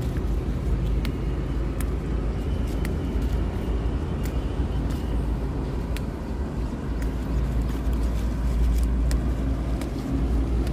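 Red amaranth stems snapping and leaves rustling as they are picked by hand, heard as scattered light clicks over a steady low rumble.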